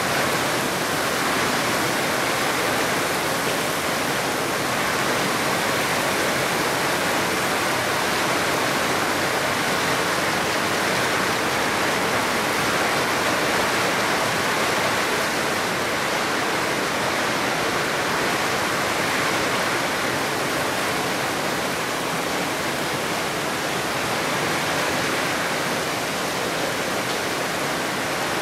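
Very heavy rain falling on an asphalt street and splashing on the flooded road surface: a dense, steady hiss that does not let up.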